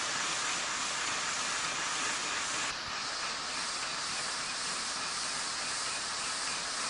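Steady hiss of steam from a 1:5 scale live-steam model of the Swiss A 3/5 locomotive no. 705, with no distinct exhaust beats.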